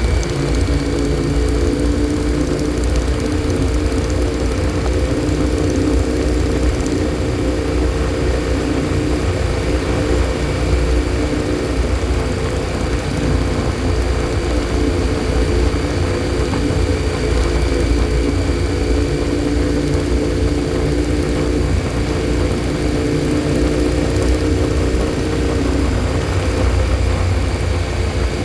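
Motorcycle engine running at a steady cruising speed, its drone holding one even pitch throughout, under heavy low wind rumble.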